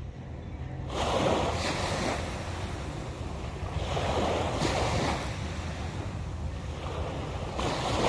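Small waves breaking and washing up a sandy beach, three surges a few seconds apart, the first starting suddenly about a second in.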